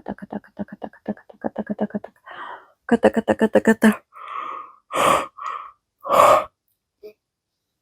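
A woman's voice running off a fast, even string of repeated syllables on one pitch, in the wordless chant-like vocalising used in the session. About four seconds in it gives way to several short, forceful breaths blown out through the mouth, the loudest two near the middle.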